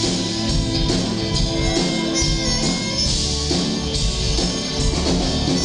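Irish/Celtic folk band playing a tune live, amplified through a PA system, with a fiddle among the instruments over a steady beat.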